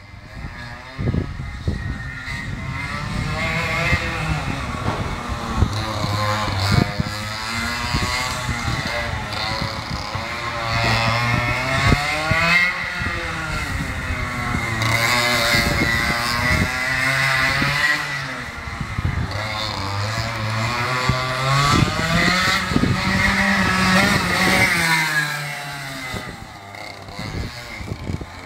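100 cc two-stroke kart engine, its pitch repeatedly rising and falling as the kart speeds up out of corners and backs off into them on its laps. It fades as the kart moves away near the end.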